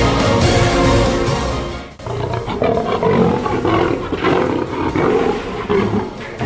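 Background music stops about two seconds in, and a long lion roar follows, dying away near the end.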